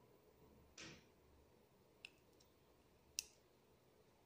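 Faint clicks of the small push buttons on a W1209 thermostat board being pressed: two sharp clicks about two and three seconds in, with a softer rub just under a second in, otherwise near silence.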